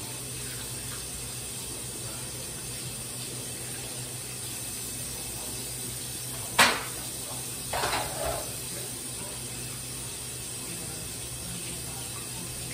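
Kitchen sink work: one sharp knock a little past the middle, then a brief clatter about a second later, over a steady low hum.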